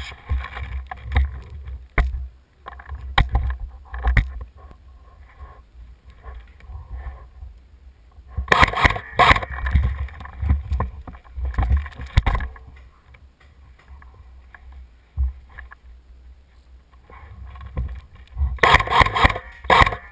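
Low wind and handling rumble on a body-worn camera's microphone, with a few sharp clicks early on and two longer stretches of louder rustling and scuffing.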